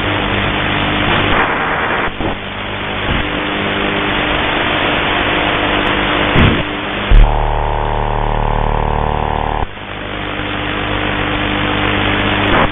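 Shortwave radio receiver hissing with static between stations, with faint steady whistle tones underneath. About seven seconds in, a loud buzzing signal starts suddenly, holds for about two and a half seconds and cuts off abruptly, and the static returns.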